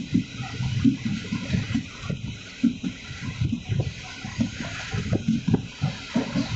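Passenger train on the move: a steady rushing noise with irregular low knocks and rattles from the coach.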